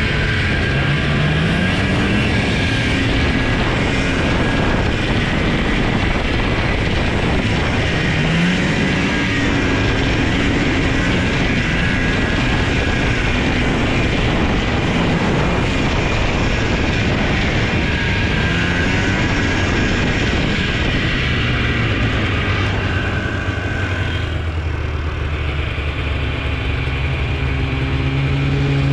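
Ski-Doo Enticer 340 two-stroke snowmobile engine running under way, climbing in pitch as it is throttled up about a second in and again about eight seconds in. Near the end it settles into a steadier, lower note.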